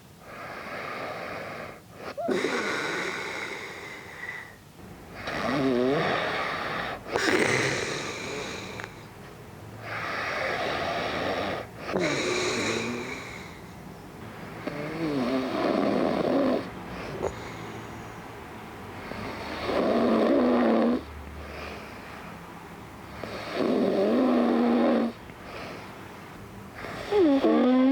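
A man snoring in his sleep while wearing an anti-snoring tongue sleeve: a rasping, buzzing snore on each breath, about every three seconds, so the snoring continues despite the device.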